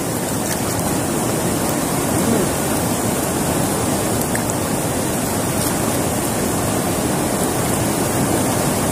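Fast-flowing river water rushing over rapids: a steady, unbroken rush of white water.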